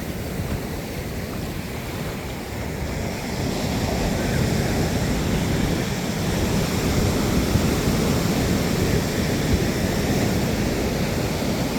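Big ocean surf breaking and washing up the beach, a steady rushing roar that grows louder about four seconds in.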